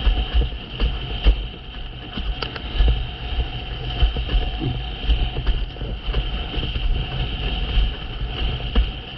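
A windsurf board planing through choppy water: wind buffeting and water rushing past, with the hull slapping and knocking on the chop many times. A steady high whine runs underneath.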